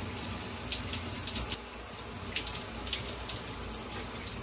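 Running water: a steady splashing hiss with brief louder splashes every so often.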